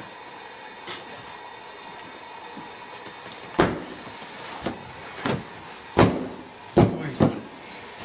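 A run of about six irregular knocks and thumps in the second half, over a steady background hum.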